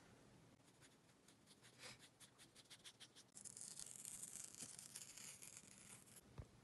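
Faint quick scratchy strokes on paper, then masking tape peeled off the edge of watercolour paper in one steady hiss lasting about three seconds, which cuts off abruptly. A soft knock follows near the end.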